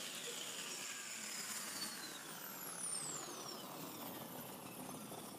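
Time-machine arrival sound effect played back: a steady mechanical whir with several high whistling tones sliding slowly downward.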